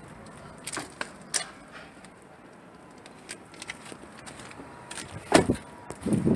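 A few light clicks and knocks in the first second and a half, then one loud thump about five seconds in, the sound of an SUV's door being shut.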